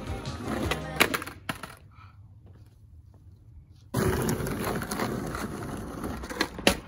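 Skateboard on asphalt: sharp clacks of the board's deck and tail striking the street, one about a second in and another near the end, with the rumble of the wheels on the road around them.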